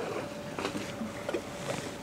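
Seaport ambience: an even background hiss with a faint steady hum, and a few faint short sounds scattered through it.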